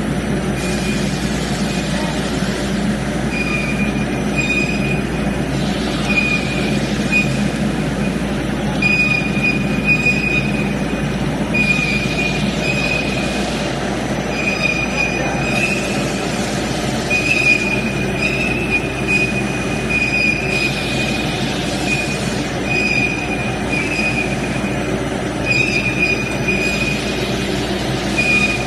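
Pet biscuit making machine running: steady mechanical noise with a high squeal that comes and goes every second or two.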